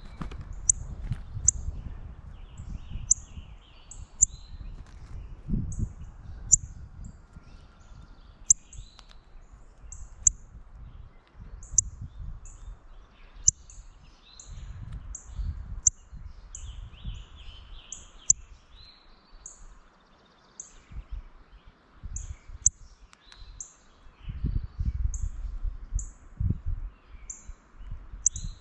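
Northern cardinals giving short, sharp, high chip notes, repeating about every half second to a second, with some lower calls in between. Low rumbling noise comes and goes, strongest near the end.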